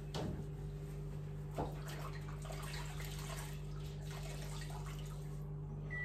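A couple of light knocks as items are set back onto refrigerator shelves, over a steady hum and hiss.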